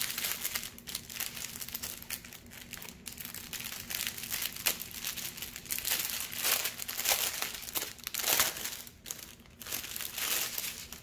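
Small clear plastic bags of diamond-painting drills crinkling and crackling irregularly as they are handled and sorted, with louder flurries about two-thirds of the way through.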